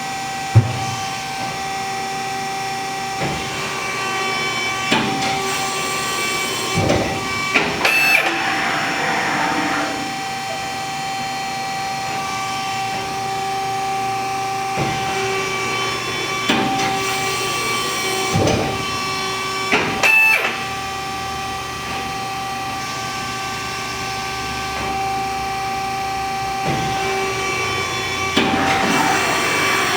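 RAS 74.30 CNC sheet-metal folding machine running: a steady mechanical whine with several clunks and short bursts of noise as it works.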